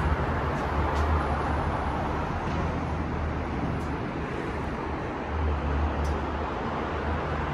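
Steady hum of city street traffic heard from high above the street, with a continuous low rumble underneath.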